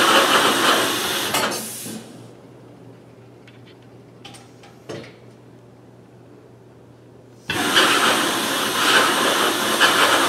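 Vacuum pump of a Piab piFLOW FC vacuum conveyor running with a loud, steady hiss of rushing air, cutting off about two seconds in. After a quiet stretch with a low hum and a couple of faint clicks, the pump starts again abruptly past the seven-second mark. This is the conveyor cycling through its batching sequence, alternating suction and pause.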